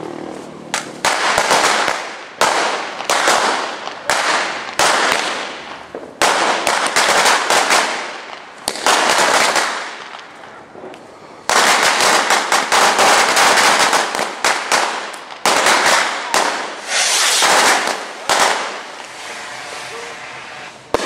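Fireworks and firecrackers going off one after another: sharp bangs, each trailing off in an echo, with a long unbroken run of rapid bangs about halfway through.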